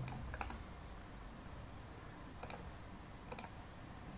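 About five separate clicks from a computer keyboard and mouse, spread over four seconds: one right at the start, two close together about half a second in, then single clicks about two and a half and three and a half seconds in, over a faint room hiss.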